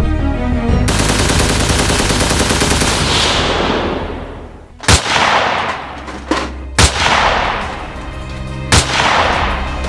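Gunfire sound effects: a rapid automatic burst that runs for about three seconds and fades, then three loud single shots about two seconds apart, each ringing away, over music.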